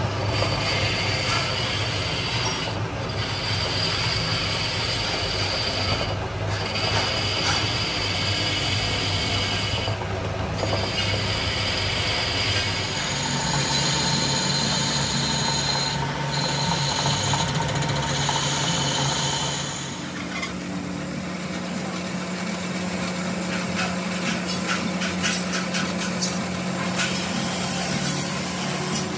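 Metalworking machinery running steadily, a hum with a scraping, cutting noise over it. The hum steps up in pitch about 13 seconds in and again about 20 seconds in, and a quick run of clicks comes near the end.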